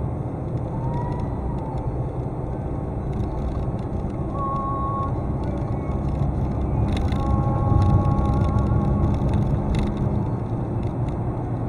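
Steady drone of a vehicle driving along a road, engine and tyre noise, swelling around the middle. Brief steady high tones sound about four seconds in and again around seven seconds in.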